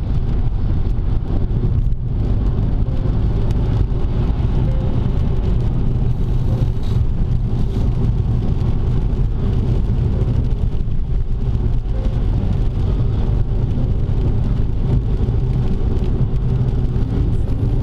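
Car driving at highway speed on a rain-wet road: steady engine and tyre noise heard from inside the cabin, strongest in the low end.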